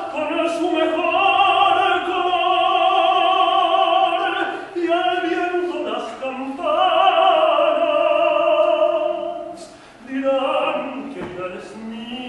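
A man singing in operatic style, holding long notes with vibrato in phrases broken by short breaths, with a brief pause near the end.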